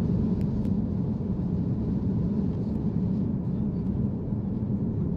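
Airbus A330 cabin noise during the climb after takeoff: a steady low rumble of the engines and airflow heard inside the passenger cabin.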